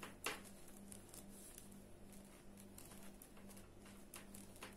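Faint, irregular light clicks of knitting needles as garter-stitch rows are knitted, over a steady low hum.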